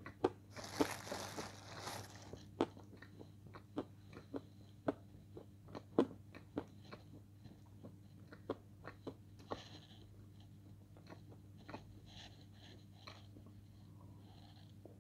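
Crunchy bites and chewing of dry edible clay (Turkestan light clay) close to the mouth. A quick run of crunches comes at first, then single sharp crunches spaced out, turning into softer chewing in the second half.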